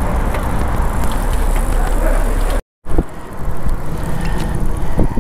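Wind noise on the microphone of a camera riding along on a bicycle, with city road and traffic noise beneath it. The sound drops out for a moment a little past halfway, then carries on somewhat quieter.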